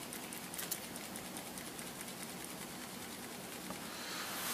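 Faint steady hiss with a low hum: room tone, no speech.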